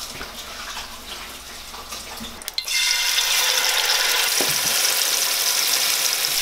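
Ladyfish fillet sizzling in hot oil in a skillet. The steady sizzle starts suddenly about two and a half seconds in, after a quieter start.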